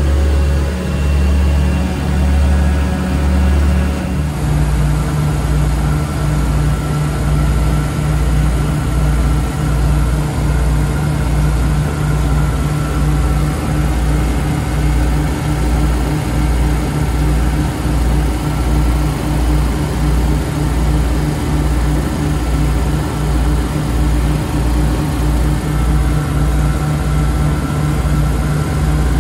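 The engines of a small homebuilt twin-engine light aircraft, droning steadily in flight, heard from inside the cockpit. About four seconds in the tone shifts and a low, even throb of about two pulses a second sets in.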